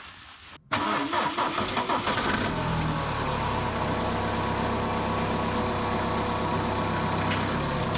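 BMW X1 diesel engine starting about a second in: it catches at once, then settles into a steady idle.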